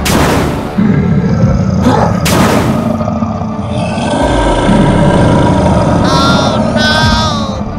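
Cartoon sound effects for a giant character jumping and landing: a heavy crashing impact at the start and another about two seconds in, over a dense low rumbling noise, with short warbling, gliding effect tones near the end.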